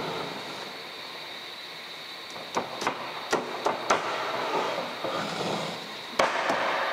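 Sharp knocks and clacks from jet ski engine parts being handled on a workbench: a quick run of about six between roughly two and a half and four seconds in, then one more near the end. A faint steady high whine runs underneath.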